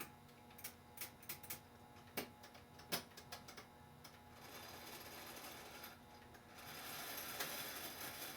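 Small sharp metallic clicks from the brass movement of an Ansonia time-and-strike clock being worked on while its verge is seated. About four seconds in, a steady mechanical whir starts and grows louder about six and a half seconds in.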